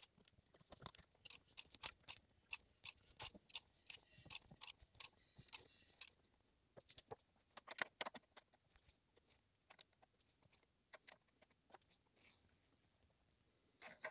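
Hand-tool work on the open cylinder head of a BMW N42/N46 engine: a run of sharp metallic clicks, about three a second, for the first six seconds, then scattered lighter clicks and taps as a metal locking tool is handled on the camshafts.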